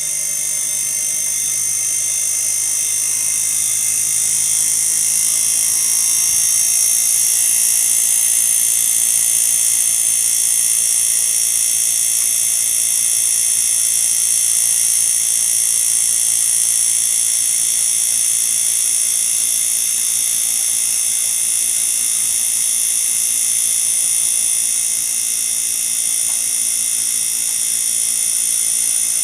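Steady high-pitched whine from a running machine over a faint low hum. One low tone rises slowly over the first several seconds, then everything holds steady.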